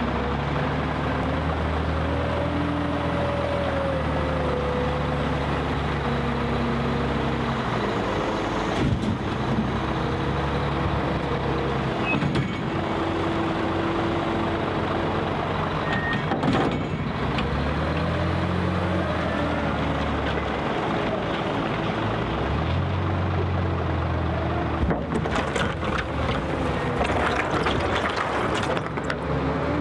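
Liebherr L566 wheel loader's diesel engine working, its revs rising and falling over a few seconds at a time as the machine drives and lifts, with occasional knocks and clatter from the bucket and soil, most of them near the end.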